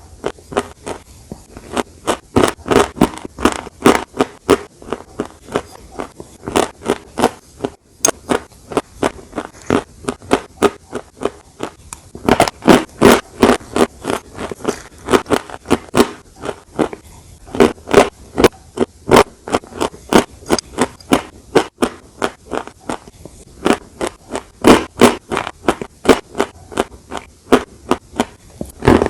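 Close-miked chewing of a crunchy dessert: a steady run of crisp crunches, about three a second, with brief pauses between runs.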